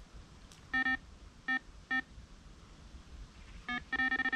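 Electronic carp bite alarm beeping. A few single beeps come about half a second apart, then near the end a fast, almost continuous string of beeps starts: a run, as a hooked carp takes line off the rod.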